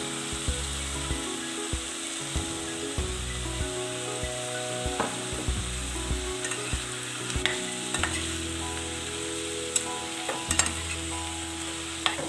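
Chopped tomatoes and bottle gourd pieces sizzling in hot oil in a pan, with a steel ladle knocking and scraping against the pan now and then as they are stirred.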